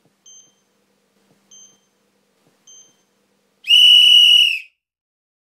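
Countdown-style start signal: three short, faint, high pips about a second apart, then one long, loud tone at about the same pitch that lasts about a second.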